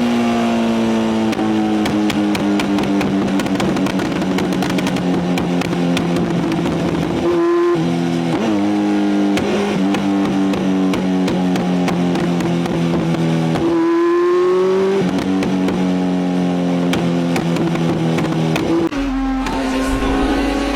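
Motorcycle engine running at steady revs while being ridden, rising in pitch and then dropping three times as it changes gear.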